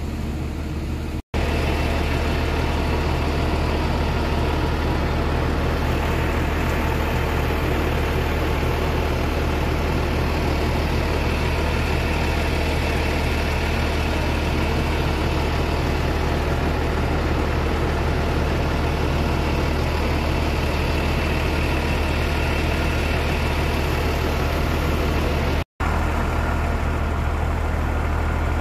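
Heavy engine running at a steady idle, a deep unchanging drone, with the sound cutting out for an instant twice.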